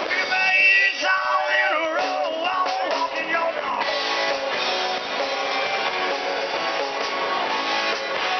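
Live rock band playing: a male singer sings over electric guitar and drums for the first three seconds or so, then the band carries on without vocals.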